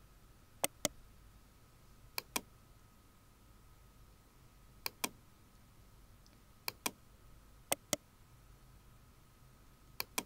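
Computer mouse button clicking six times at uneven intervals, each click a sharp double tick of press and release. A faint steady high tone and room hum sit underneath.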